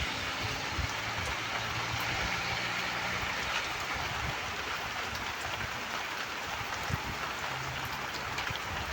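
Heavy rain falling steadily, an even dense hiss, with a faint low hum coming and going underneath.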